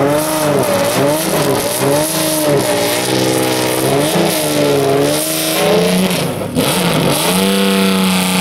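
Ford Supervan 3's Cosworth racing V8 revved repeatedly, its revs rising and falling about once a second. About six and a half seconds in it drops briefly, then holds a steady higher rev.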